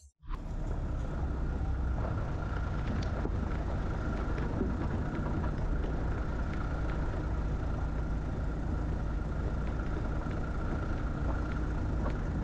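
Steady engine hum and road rumble of a slow-moving vehicle on a rough road, beginning after a split second of silence.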